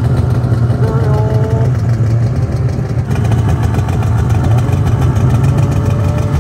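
Snowmobile engine idling steadily up close: a 2024 Polaris 9R Khaos, a two-stroke twin, breathing through an RPM titanium chambered muffler.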